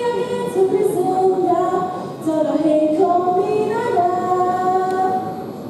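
A woman singing slow, long held notes that glide from one pitch to the next, over faint backing music.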